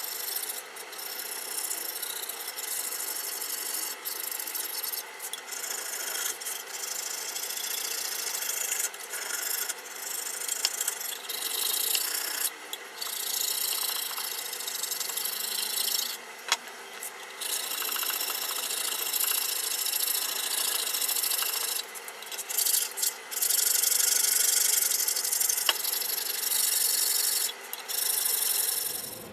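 Hand file scraping across the rough cast-metal body of a tenon jig, taking down the high edges so it will sit flat. A continuous rasping scrape with several short pauses between runs of strokes.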